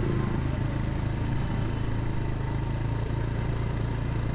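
Suzuki GS150's single-cylinder four-stroke engine idling steadily at an even pitch.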